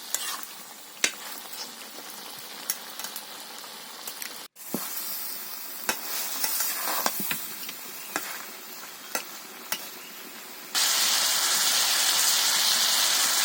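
A spiced vegetable curry of potatoes, cauliflower and tomato sizzling in hot oil in a pan, with clinks and scrapes of a spatula as it is stirred. Near the end a much louder sizzle starts suddenly.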